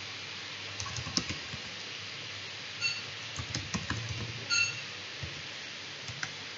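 Typing on a computer keyboard: short runs of key clicks in three bursts over a steady background hiss. Two brief high pings sound among the keystrokes.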